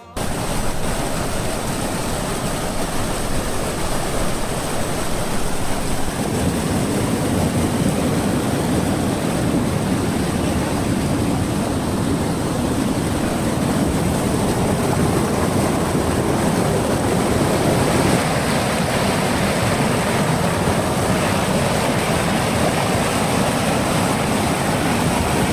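Waterfall: water pouring down in a steady, unbroken rush.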